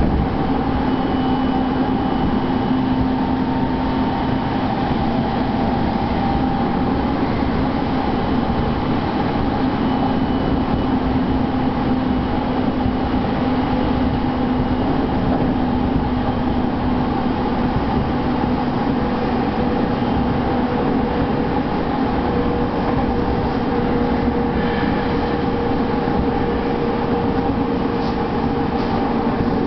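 Interior running noise of a Tokyo Waterfront Area Rapid Transit 70-000 series electric commuter train cruising at speed: a steady rumble of wheels on the rails with a faint steady hum from the running gear.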